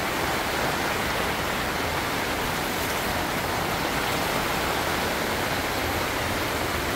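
Steady rain falling in an even hiss, heard from inside a tent.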